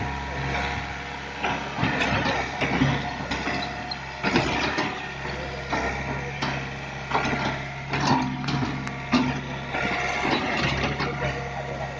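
Excavator's engine running steadily, with irregular metallic clanks and knocks over it.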